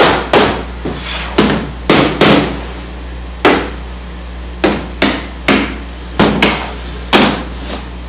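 Hammer striking a wooden stretcher-bar frame at its corners, about a dozen sharp blows at uneven intervals, knocking the tenon joints to bring the frame square.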